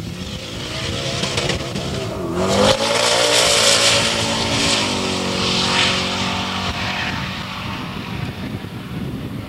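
Lingenfelter twin-turbocharged 1995 Corvette ZR1 (LT5 V8, 850 rear-wheel horsepower) at full throttle on a quarter-mile drag-strip pass. The engine note climbs hard for the first couple of seconds. The car is loudest as it passes about three seconds in, then the pitch slowly falls away as it runs off down the track.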